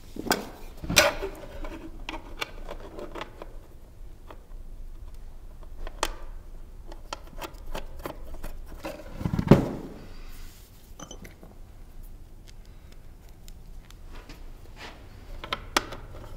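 A metal mounting bracket and small hardware being handled and fitted onto a small fog machine's metal case: scattered clicks and taps, with a heavier knock a little past halfway.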